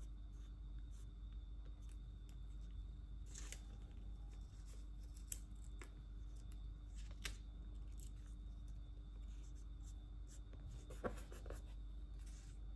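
Faint handling of paper stickers: small clicks and taps of tweezers setting stickers onto a planner page, with three sharper clicks spread through, over a steady low room hum.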